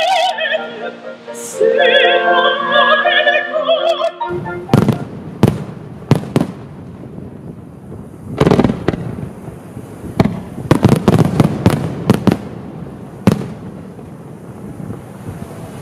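Operatic singing with strong vibrato breaks off about four seconds in. Fireworks follow: sharp bangs at irregular intervals over a steady hiss, with a quick run of them about two-thirds of the way through.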